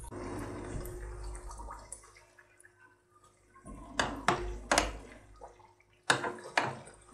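Hot oil sizzling around a layered yeast-dough pastry deep-frying in a saucepan, fading after about two seconds. Then several sharp clinks of two metal forks against the pan and pastry as the layers are pulled open.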